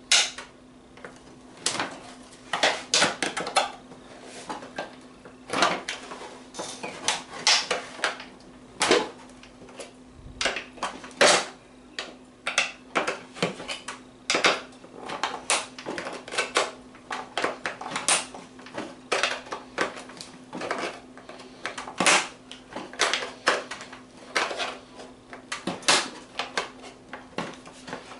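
A sealed steel ammunition spam can being punctured and cut open around its lid with its small hand-held metal opener tool. It makes irregular sharp metallic clicks and scrapes, a few a second, as the cutter is worked around the can.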